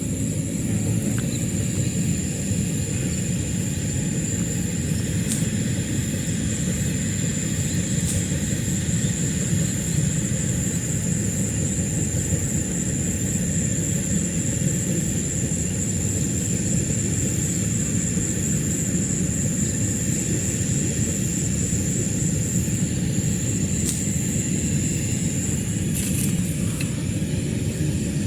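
Steady low outdoor rumble with a thin, continuous high-pitched whine above it and a few faint clicks.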